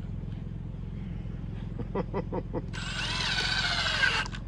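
Cordless drill driving a screw into a wooden board: the motor runs for about a second and a half, its pitch sagging under load, then stops abruptly.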